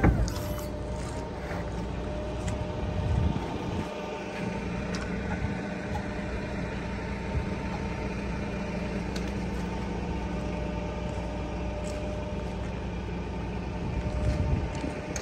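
Volvo truck's diesel engine idling steadily, a constant low hum with a few fixed tones, after a sharp click right at the start.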